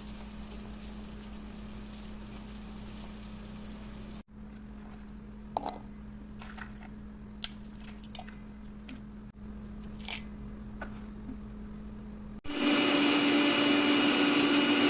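A steady low hum, then a few light clicks and knocks. About two and a half seconds before the end, a loud, steady, machine-like whirring starts abruptly, like a kitchen appliance motor running.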